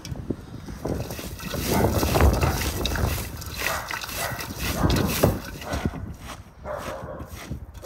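Hands kneading and squeezing shredded cabbage and grated carrot in an enamel basin: crunching, rustling and squelching of the leaves, heaviest about two and five seconds in and easing off near the end.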